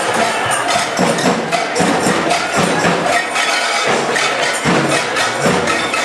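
Percussion playing: a dense run of sharp wooden-sounding clicks and drum hits that does not let up.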